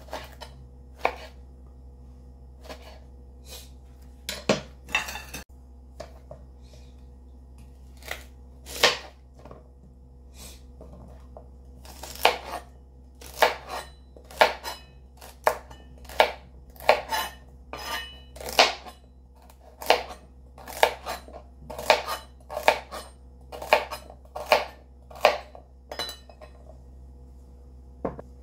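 Chef's knife slicing tomato and then celery, each cut ending in a sharp knock on a plastic cutting board: a few scattered cuts at first, then a steady run of about one cut a second from about halfway. A faint steady low hum sits underneath.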